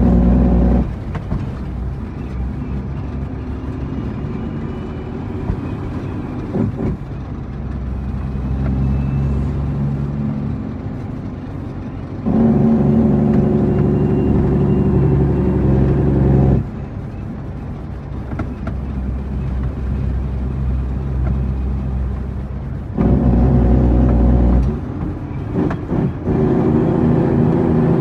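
A heavy truck's diesel engine running, from an International 9300. Its level steps abruptly between loud stretches and quieter ones several times: loud at the start, dropping about a second in, loud again from about halfway to two-thirds through, and once more near the end.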